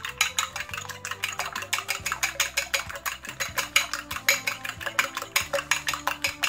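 A metal fork whisking two raw eggs in a small ceramic dish, clicking against the dish in a fast, even rhythm of about six strokes a second.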